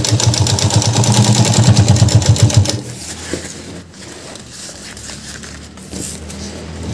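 Sewing machine stitching fast through a bag's waterproof fabric and zipper strip, running steadily for about three seconds and then stopping. A faint low hum carries on after it.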